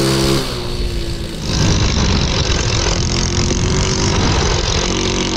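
Single-cylinder 125cc Lifan clone engine in a Honda Z50R mini bike running under throttle, its pitch rising as it accelerates. After a cut about a second and a half in, it is heard close up from the bike under a loud rush of wind on the microphone.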